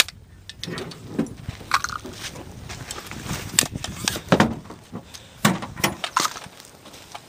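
MP40 submachine gun firing irregular single shots, sharp cracks several times over a few seconds, the loudest near the middle.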